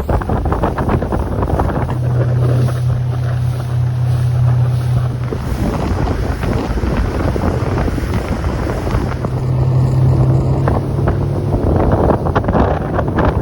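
Wind buffeting the microphone on a motorboat running fast, with the boat's engine a steady low hum for most of it.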